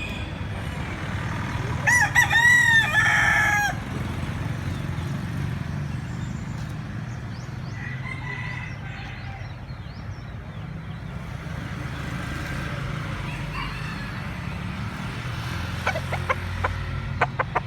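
A rooster crows once, loudly, about two seconds in, over a steady low background rumble. A fainter call follows later, and a quick run of sharp clicks or taps comes near the end.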